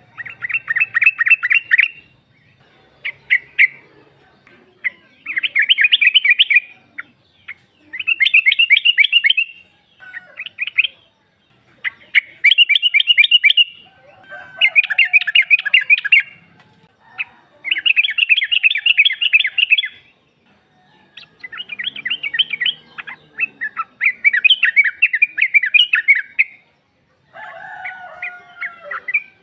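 Yellow-vented bulbul (trucuk) calling: repeated bursts of rapid, chattering notes, each lasting a second or two, with short pauses between them. It is a female's call to males, used as a lure to make captive males answer.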